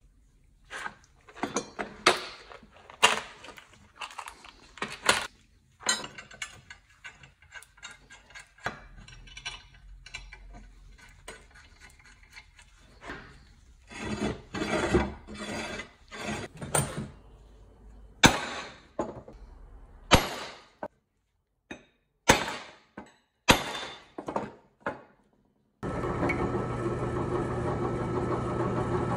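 Irregular sharp clicks, knocks and clinks of metal parts and tools being handled, one or a few at a time with short gaps. Background music comes in near the end.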